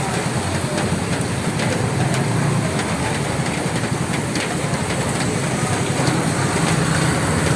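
Steady rain falling on a roof: a dense, even hiss of rain with many single drops ticking through it.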